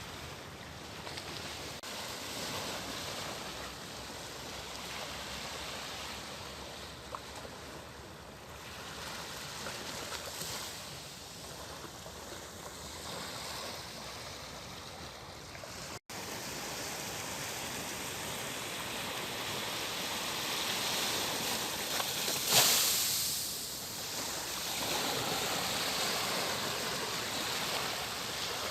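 Steady outdoor rushing noise of wind and water, broken by a brief dropout just past halfway and a short, much louder rush about three-quarters of the way through.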